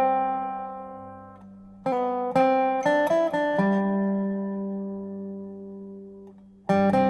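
Background music: an acoustic guitar strumming a few chords in short groups, letting each chord ring and slowly fade before the next group, as the quiet opening of a song.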